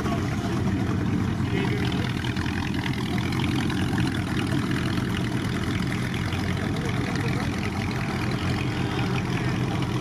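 A car engine idling steadily, with people talking in the background.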